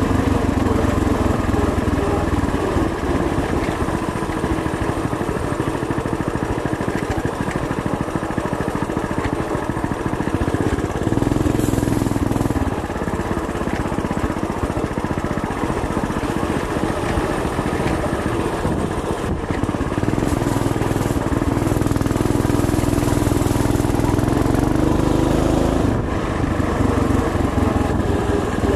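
Coleman BT200X mini bike's small single-cylinder engine running steadily under way. Its note swells as the throttle opens, at about the middle and again for several seconds later on, and eases back in between.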